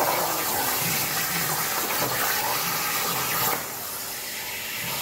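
Air plasma cutter torch cutting 1 mm sheet plate at 25 amps on a CNC table: a loud, steady hissing rush of the arc and compressed air, which drops to a softer hiss a little past halfway.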